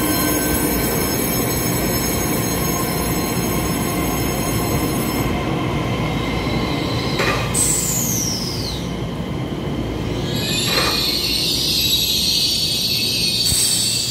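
Taiwan Railway electric multiple-unit train running past and away along an underground platform, with a continuous rolling rumble and steady high tones for the first few seconds. Wheel squeals slide down in pitch about seven and a half seconds in and again near the end.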